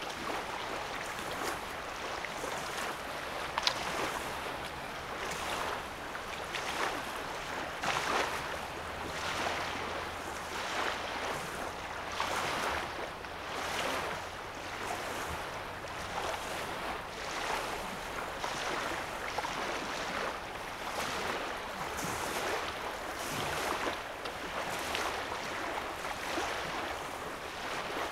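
Small waves lapping on a sandy lake shore, one soft wash every second or two.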